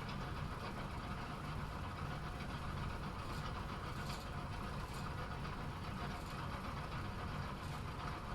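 Bowling-alley pinsetter machinery running with a steady mechanical hum, and a few faint clicks in the middle.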